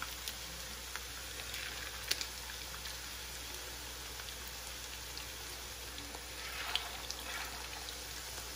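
Oil sizzling and crackling steadily around bread pieces spread with chicken mince, frying chicken side down in a nonstick pan. The sizzle flares briefly twice, about two seconds in and near seven seconds, as more pieces are laid into the hot oil.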